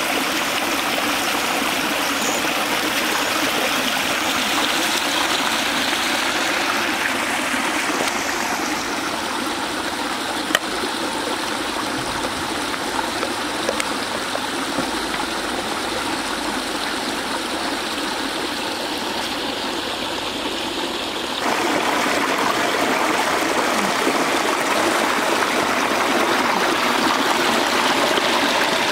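Shallow water running and splashing as it pours out of concrete culvert pipes and spills over a low mud bank into a channel: a steady rush that gets louder about three-quarters of the way through.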